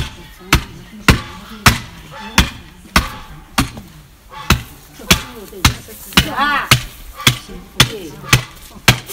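A butcher's cleaver chopping into a freshly slaughtered pig carcass, striking steadily at about two blows a second.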